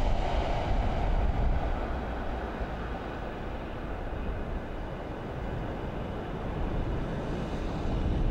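Deep, steady sound-designed rumble, like wind or a heavy engine. It eases off a little in the middle and builds again near the end.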